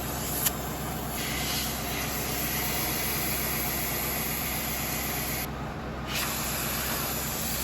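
Car engine running steadily with a loud hiss over it, the hiss changing in strength a couple of times, on a car that is having some kind of problem.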